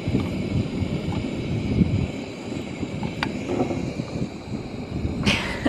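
Camp stove burner running steadily under a pan of toasting bread, with a sharp click about three seconds in and a brief rustle near the end.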